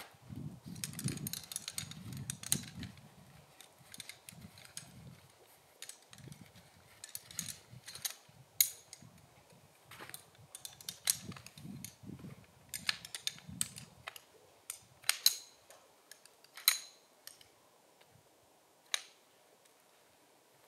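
A collapsible camp chair being unpacked and put together: fabric rustling and handling noise at first, then a dozen or so sharp clicks and snaps as its shock-corded poles seat into place and the seat is fitted onto them.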